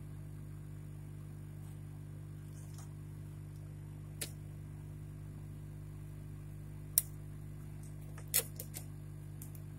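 Small tools tapping and clicking on the router's circuit board during soldering work: a handful of faint, scattered clicks, the loudest about eight seconds in, over a steady low hum.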